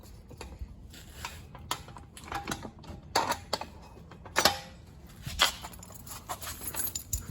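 Irregular metal clicks and clinks as a bolt is worked out of the homemade metal latch pieces on a Black & Decker Workmate, with a few louder knocks that ring briefly.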